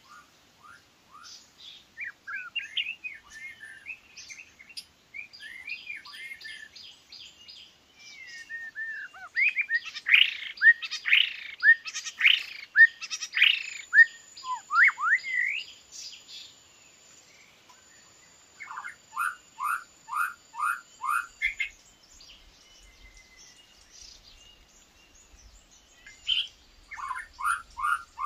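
White-rumped shama singing and calling: varied loud whistles, fast runs of repeated notes and downslurred phrases. The song is loudest about ten to fifteen seconds in, and a run of five falling whistles comes about twenty seconds in.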